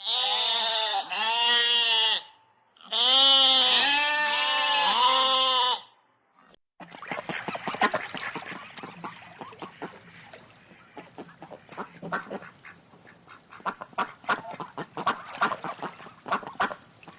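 Domestic waterfowl calling: two loud bouts of repeated honking calls, several a second, in the first six seconds. A long stretch of rapid, fainter clicks and short sounds follows.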